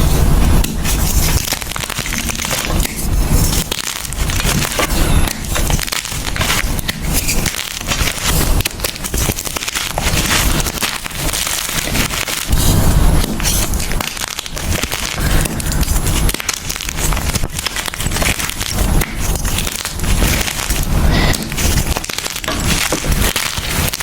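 Gym chalk being crushed: a steady, dense run of loud crunches and crackles, with heavier crunches near the start and again about thirteen seconds in.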